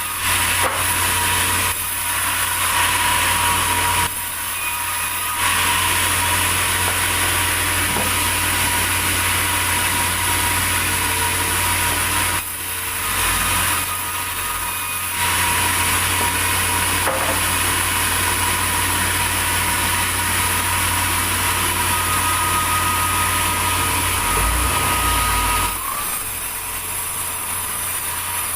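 Sawmill saw cutting through a large durian log: a steady rasping hiss of the blade in the wood that drops off briefly several times, including near the end, over the constant low hum of the mill's engine.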